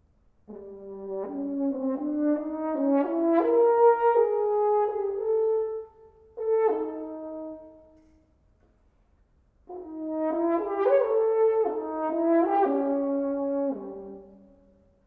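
Unaccompanied French horn playing two melodic phrases of separate held notes. The first phrase ends about six seconds in and is followed by one short detached note. After a pause of about two seconds, the second phrase begins.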